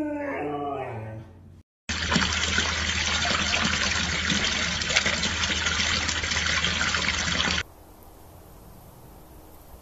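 Water pouring and splashing steadily from a spout for about six seconds, then cutting off abruptly. Just before it, the end of a husky's howl, falling in pitch and fading.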